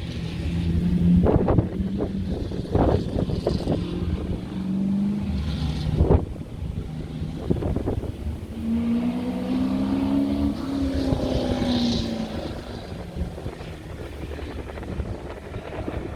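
A car engine running at a hill climb, its pitch rising under acceleration about nine seconds in and then falling away, with wind buffeting the microphone throughout.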